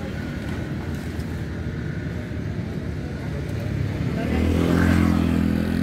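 Road traffic: motor vehicle engines running steadily, with one engine growing louder about four seconds in, as from a vehicle passing close by.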